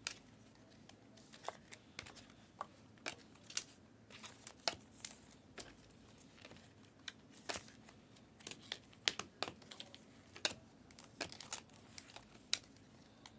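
Trading cards being handled and flipped through by hand: scattered light clicks, snaps and crinkles at an uneven pace, a few of them sharper.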